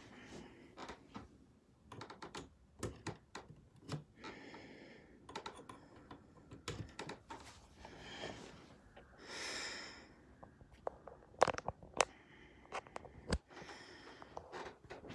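Scattered clicks, light taps and brief rustles at irregular times, handling noise from objects being moved close to the microphone.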